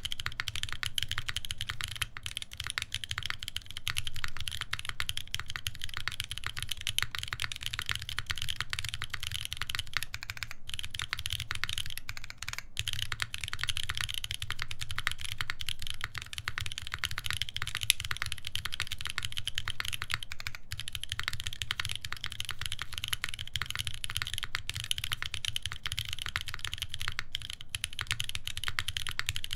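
Steady typing on a UNIKORN R2.1 mechanical keyboard with lubed Boba U4T tactile switches, a full FR-4 plate and GMK keycaps: a dense stream of keystrokes, with short pauses about ten and twelve seconds in.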